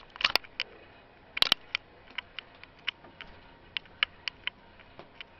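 Sharp clicks and taps of a hairless kitten's claws on the top of a wire crate as she moves about. A few come in quick clusters near the start and about a second and a half in, then single ticks follow every fraction of a second.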